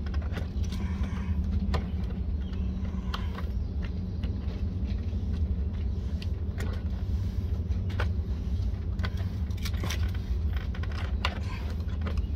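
Utility knife scoring the flange of a vinyl siding corner post, making irregular sharp clicks and ticks as the blade cuts and the vinyl flexes. A steady low rumble runs underneath.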